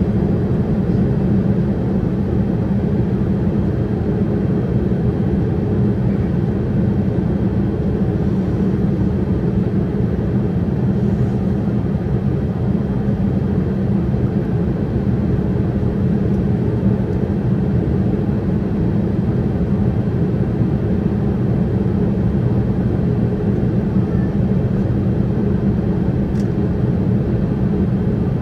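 Boeing 787-8 cabin noise in flight: a steady, even rush of engine and airflow noise, strongest in the low range, with no change in level.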